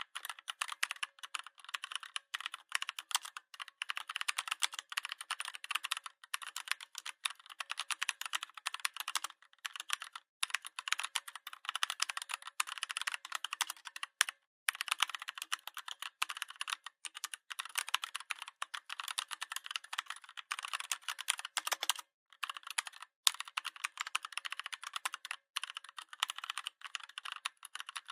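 Fast continuous typing on a Redragon 61-key mechanical keyboard: a dense stream of key clicks, broken by a few short pauses.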